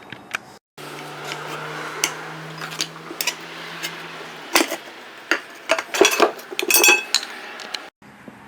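Metal clinks and knocks from the wheel rim and tools being handled while a small tire is worked onto its rim, over a low steady hum. The knocks come thickest in the second half.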